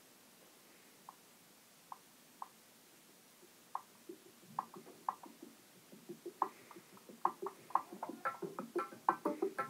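Downtempo instrumental music playing from a Google Home Mini smart speaker. It begins as a few sparse short notes and fills in to a busier rhythmic pattern, growing steadily louder through the second half.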